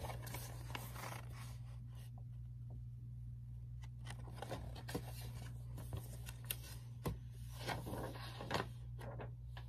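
Paper pages of a picture book rustling and scraping as the book is handled, with a few light ticks and knocks, over a steady low hum.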